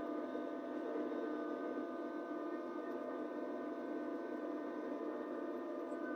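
Kubota LX2610 compact tractor's diesel engine running steadily with its LX2963 front snowblower working through heavy wet snow: a steady hum with several fixed tones and no change in pitch.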